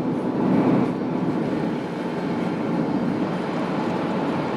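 Steady engine and road noise inside a Nissan Vanette van's cabin while driving.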